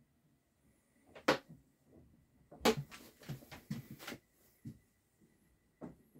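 Irregular knocks and thumps of someone moving about a small wooden cabin: a single knock about a second in, then a quick cluster of about eight over a second and a half, and another near the end.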